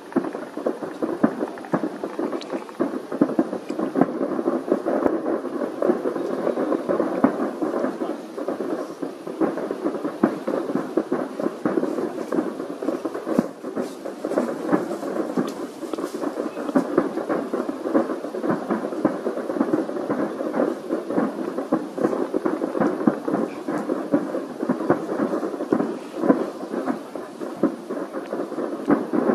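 Aerial fireworks shells bursting in quick succession: many bangs and crackles overlap into a continuous, dense rumble with no pauses.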